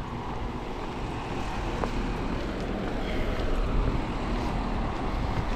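Outdoor street noise: a steady low rumble and hiss, swelling a little toward the middle.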